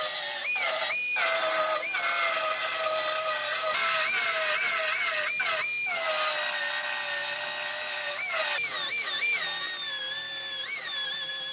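High-speed pneumatic body-shop tool whining as it cuts into a car's rear body panel: its pitch climbs when free-spinning and sags each time it bites under load, over and over.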